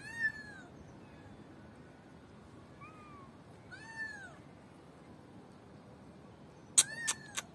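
Kitten distress meows played from a phone speaker: a few high, arching cries spaced a couple of seconds apart, then a quick run of short, louder cries near the end.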